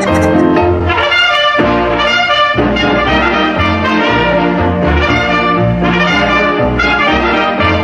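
Background music led by brass, with a steady run of bass notes underneath.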